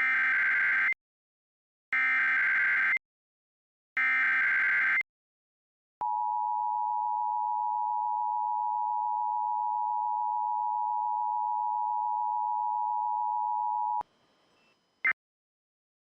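Emergency Alert System signalling: three one-second bursts of warbling SAME digital header data, each followed by a one-second gap. Then the two-tone EAS attention signal holds steady for about eight seconds and cuts off suddenly. A short data chirp comes near the end, and the first of the end-of-message bursts begins right at the close.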